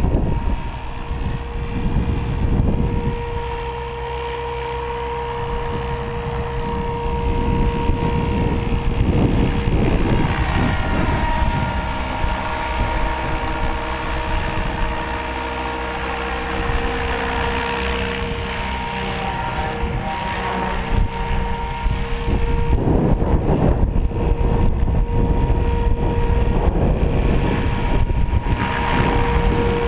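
Electric RC helicopter (SAB Goblin 700) in flight: a steady motor and rotor whine that weakens for a few seconds past the middle, with wind rumbling on the microphone.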